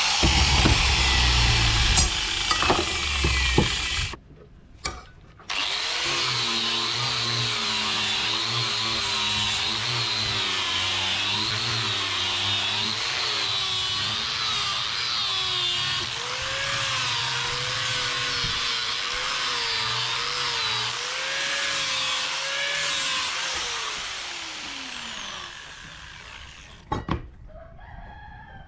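An electric power tool runs under load, and its motor whine wavers up and down as the work bears on it. It stops for about a second, starts again, and near the end winds down with a falling whine after it is switched off.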